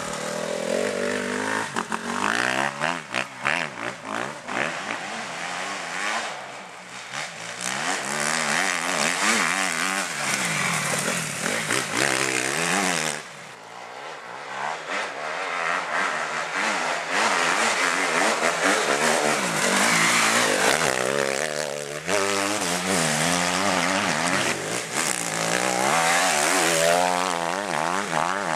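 Honda dirt bike engine revving up and dropping back again and again as the rider accelerates and shifts through the gears. Its pitch keeps rising and falling, and it briefly fades twice, about a quarter and about halfway through.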